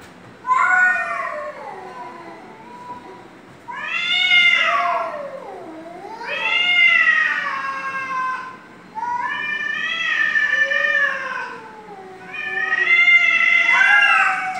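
Domestic cats caterwauling in a face-off: a run of about five long, drawn-out yowls that rise and fall in pitch, with short breaks between them. This is the threat yowling of cats squaring up to fight.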